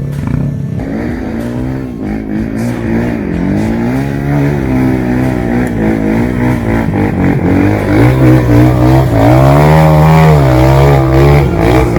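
Trail motorcycle engine revving up and down, its pitch rising and falling again and again, with the hardest revving from about eight seconds in.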